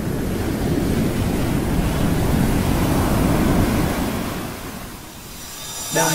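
A steady rushing noise with no clear pitch, mostly low, swelling and then fading away about five seconds in. Music cuts in at the very end.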